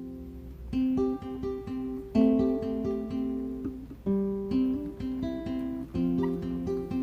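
Background music: a fingerpicked acoustic guitar playing a gentle melody of separate plucked notes.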